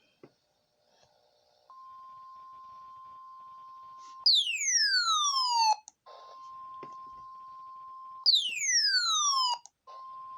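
NOAA Weather Radio's 1050 Hz warning alarm tone, a steady beep, marking a tornado warning activation. It is broken twice by a loud whistle that sweeps down from high to low, each lasting about a second and a half, and the tone resumes after each one.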